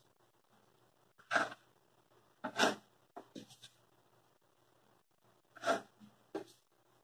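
Wide paintbrush scraping and dabbing paint onto paper and loading from a paint tray, in several short scraping strokes with pauses between.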